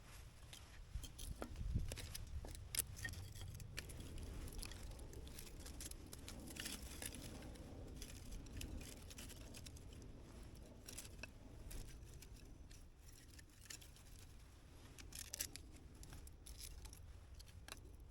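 Firewood being handled and stacked for a campfire: scattered light clicks, knocks and scrapes of sticks, with short rustles.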